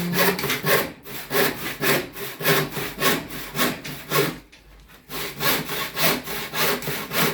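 Hand saw cutting wood with quick, even back-and-forth strokes, about two to three a second, pausing briefly about four and a half seconds in before going on.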